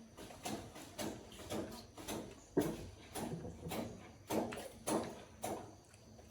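Repeated short scraping knocks, about two a second, from hand-tool work on a part.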